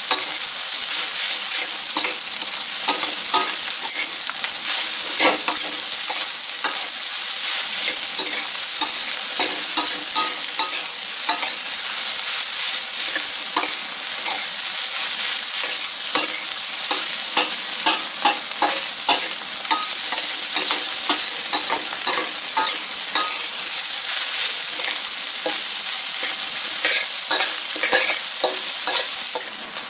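Fried rice sizzling in a steel wok as a metal spatula stir-fries it, with frequent irregular clinks and scrapes of the spatula against the pan.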